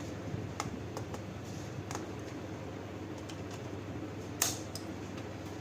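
Small scattered plastic clicks as a laptop keyboard is pried up from its clips with a thin tool, with one sharper click about four and a half seconds in, over a steady low background hum.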